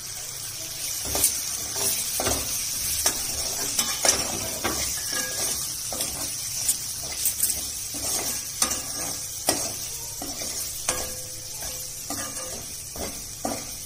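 Onions and ground spices sizzling in a hot kadai while a perforated steel ladle stirs them, scraping and knocking irregularly against the pan: the spice powders being sautéed into the onions.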